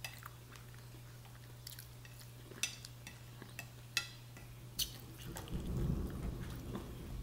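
Quiet eating sounds: a few sharp clicks and crunches from a hard taco shell and a plastic spoon on a glass plate, over a faint steady hum. A low rumbling thump comes in near the end.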